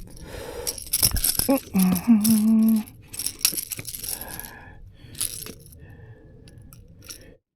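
Rattling and knocking while a hooked striped bass is unhooked: the lure's hooks clattering and the fish flopping, in irregular bursts that are busiest in the first few seconds. A brief low hum comes about two seconds in, and the sound cuts off abruptly just before the end.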